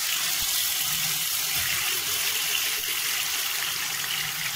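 Yogurt-marinated chicken pieces sizzling in hot oil in a frying pan as they are laid in with tongs: a steady, even hiss.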